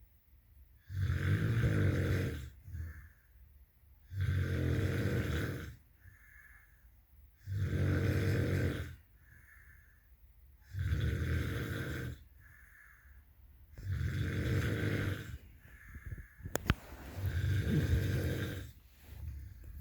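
A person snoring heavily in sleep: six loud snores, one about every three seconds, with quieter breaths between. A single sharp click comes about three-quarters of the way through.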